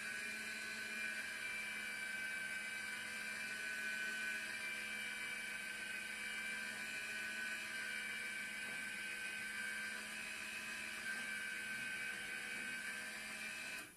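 Channel Master 1.2 m satellite dish's motorised actuator whirring steadily as it slews the dish across the satellite arc. The whine holds an even pitch, then cuts off suddenly near the end as the motor stops.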